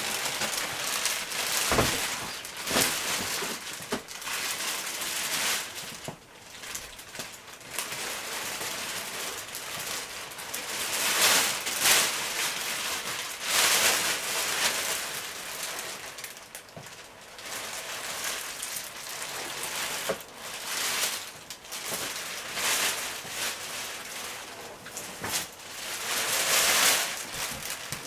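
Rustling and crackling of packaging, handled in irregular surges as the dishwasher is lifted out of its box.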